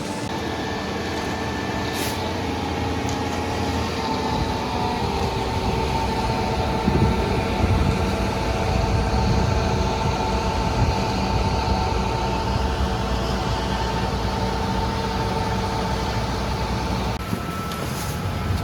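Concrete pump truck's diesel engine running steadily under load as it pumps concrete, a constant hum with a few held tones over a rumble; the tone shifts slightly near the end.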